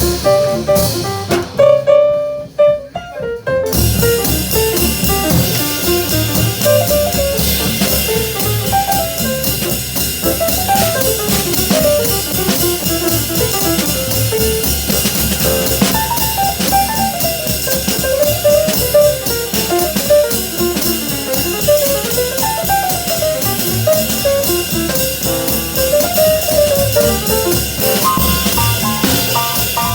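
Small jazz band playing, a drum kit keeping time under a horn carrying a winding melody; the drums and cymbals break off briefly about two seconds in, then the band comes back in full.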